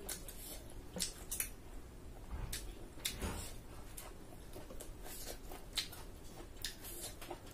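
A person eating with their fingers from a steel plate: fingers squelching through soft boiled food, and chewing and mouth smacks. These come as scattered short wet clicks, the strongest about three seconds in.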